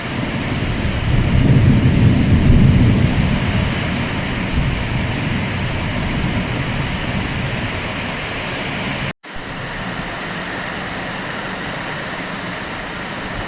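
Heavy rain falling steadily, with a long low rumble of thunder swelling about a second in and fading over the next few seconds. The sound drops out for an instant about nine seconds in.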